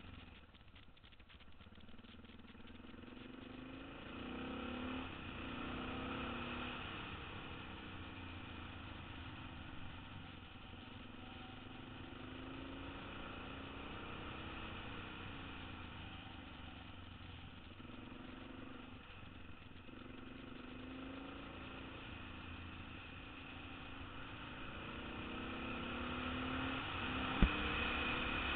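Motorcycle engine running at low street speed, its pitch rising and falling again and again as the throttle opens and closes, over a steady low wind rumble. It grows louder near the end, where there is one sharp knock.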